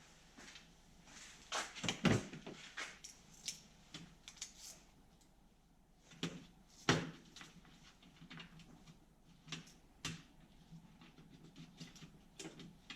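Scattered clicks, knocks and clatter of small engine parts and hand tools being handled on a workbench during carburetor disassembly, with the sharpest knocks about two seconds and seven seconds in.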